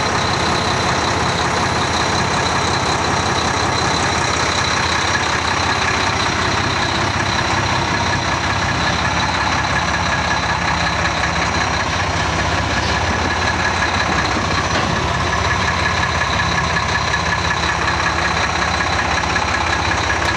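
Diesel engine of a 2009 Mack GU713 Granite dump/plow truck running steadily at idle, with a steady high whine over it.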